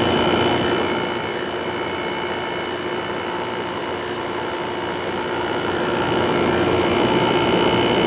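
A Home 5000 BTU air conditioner running with its GMCC compressor and fan on: a steady hum with several steady tones over the fan's airflow noise, dipping a little in loudness in the middle. The compressor sounds healthy.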